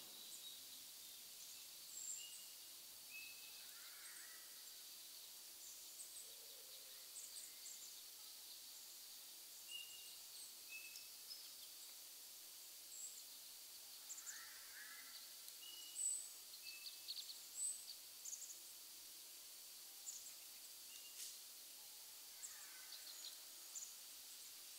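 Faint forest ambience: scattered short, high bird chirps and calls over a steady low hiss.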